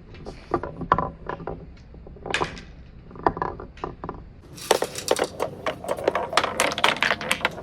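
Marbles rolling and clacking along a wooden marble run: scattered knocks at first, then a dense run of rapid clicks and rattles from about five seconds in.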